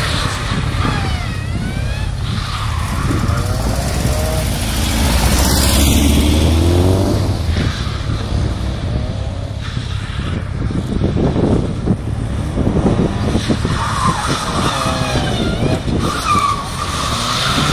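Vauxhall Nova hatchback's engine revving up and dropping back again and again as the car accelerates, brakes and turns tightly around cones, with some tyre noise.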